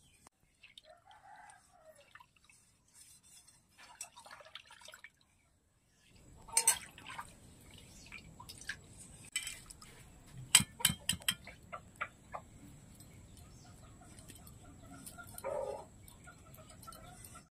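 Hard-boiled eggs being peeled by hand, with sharp clicks and crackles of eggshell and small knocks against steel and aluminium bowls, loudest in the middle. A chicken clucks in the background near the start and again near the end.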